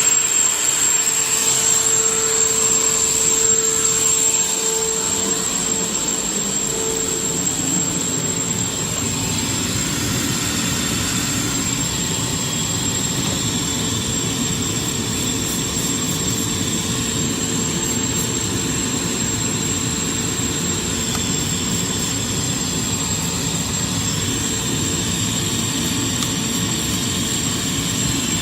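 Shop vacuum running steadily with its hose on the blowing side, pushing air into a car's exhaust pipe to pressurize the exhaust system and find a leak. The sound drops slightly about four seconds in and then holds steady.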